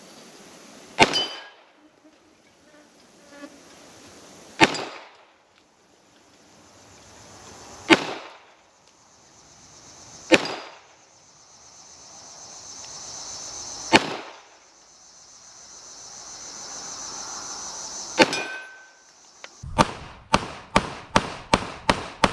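Glock 21 .45 ACP pistol firing six single shots a few seconds apart, each a sharp report with a short ringing echo, followed near the end by a quick string of about eight quieter cracks. A steady high-pitched insect drone fills the gaps between the shots.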